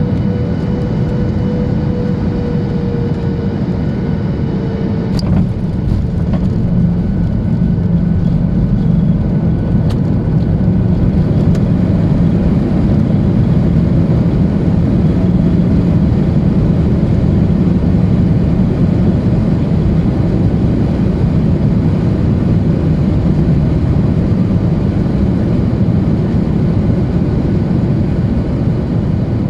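Steady deep cabin noise of a Boeing 737-800 with its CFM56 engines running, heard from inside the cabin. A faint tone falls slightly in pitch over the first few seconds, and there are two brief clicks.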